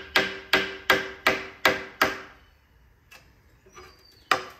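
Hammer striking a chisel in a steady series of ringing metal-on-metal blows, about two and a half a second, driving a stuck part off its dowel pin on a Cat engine. The blows stop for a couple of seconds, then start again near the end.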